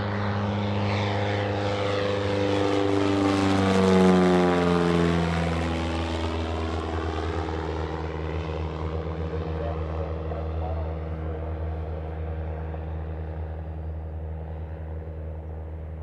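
Mooney M20J single-engine propeller plane making a low fly-by. The engine and propeller drone grows loudest about four seconds in, drops in pitch as the plane passes, then slowly fades as it flies away.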